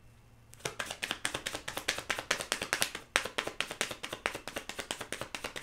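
Tarot deck being shuffled by hand: a fast run of crisp card slaps and clicks starting about half a second in, with a brief pause near the middle.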